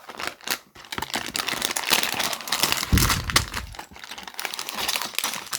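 Plastic bags and packaging crinkling and rustling as a brick-kit box is unpacked by hand, with small clicks of loose plastic pieces inside bags.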